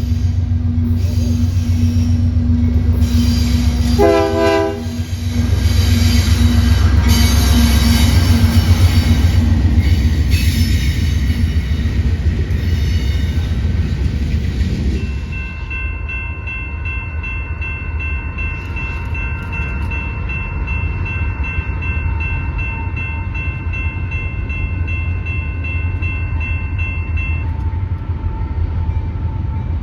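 Train rumbling past, loud for the first half, with a short horn sound about four seconds in. The rumble then drops to a quieter roll under several steady high ringing tones that last about twelve seconds and stop near the end.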